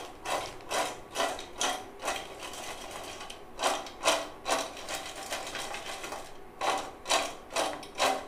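Crisp fried cut mirchi bajji pieces rattling and sliding against a stainless steel bowl as it is shaken to toss them in red chilli powder. Three runs of quick shakes, about two to three a second, with short pauses between.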